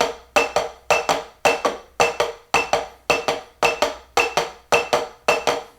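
Drumsticks striking a rubber practice pad in the unison skips exercise, both hands together, in a steady groove of about 110 beats a minute. Each beat is a short cluster of crisp strokes with a small click on the beat.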